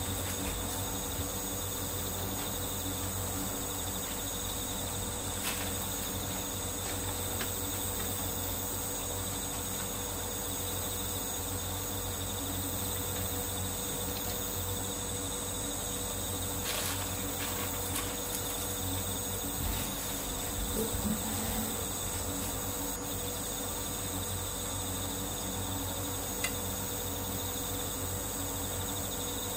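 Steady, continuous chirring of crickets or similar insects, with a few faint clicks.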